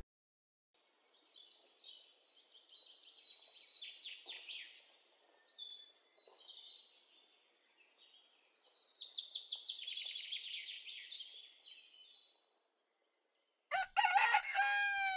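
Birds chirping in two long stretches, then a rooster crowing loudly near the end, its call falling in pitch at the close.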